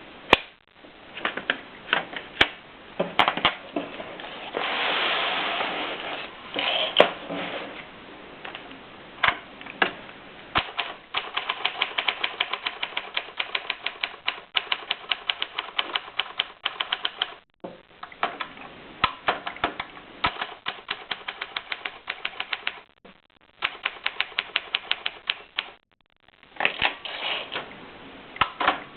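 Olympia Elite typewriter being typed on: scattered key strikes and a longer rasping sound around five seconds in, then from about eleven seconds a fast, even run of keystrokes with a few short pauses.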